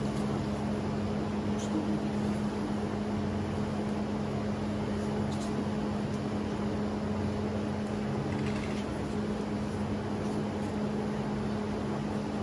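Steady mechanical hum with a constant low tone over an even hiss, and a few faint, brief high squeaks.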